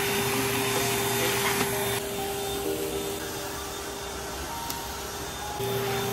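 Vacuum cleaner running steadily with a motor hum and airy hiss. It gets a little quieter about two seconds in and louder again near the end.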